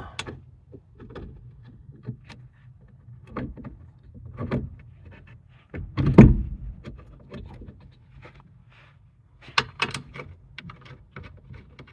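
Scattered clicks and knocks of hand tools and metal parts as bolts are fitted back in under a car's dashboard, with a louder knock about six seconds in and a quick cluster of sharp clicks near the end.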